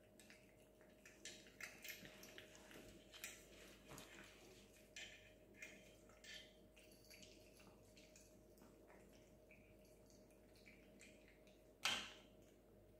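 Cats eating dry cat food: faint, irregular crunches and clicks of chewing and of kibble nudged on a plate, with a sharper click near the end. A faint steady hum runs underneath.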